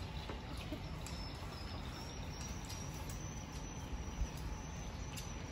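Outdoor ambience over a steady low rumble, with an insect's thin, steady high-pitched drone that creeps slightly up in pitch. A few faint light clicks, and a short low bump about four seconds in.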